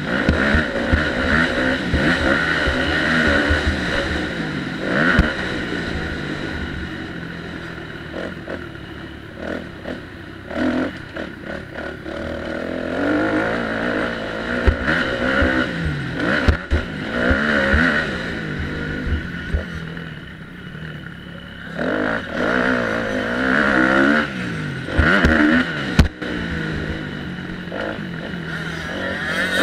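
Motocross dirt bike engine revving up and down as it is ridden hard over a rough dirt track, heard close from the handlebar-mounted camera, with sharp knocks from the bike over ruts and landings now and then.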